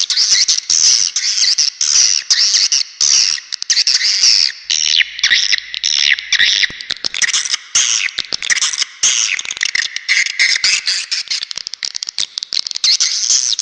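Dense, continuous chattering twitter of swiftlets, many rapid high chirps overlapping. This is a swiftlet call track of the kind played from bird houses to lure swiftlets in to roost and nest.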